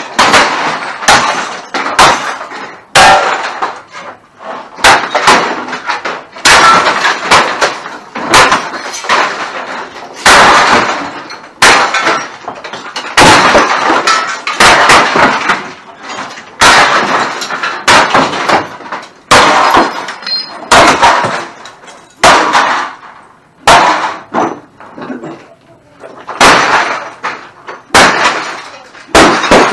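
Repeated blows from swung metal bars and clubs smashing glass and plastic electronics, each strike followed by the crash and scatter of broken glass and debris. The blows come irregularly, often a second or less apart.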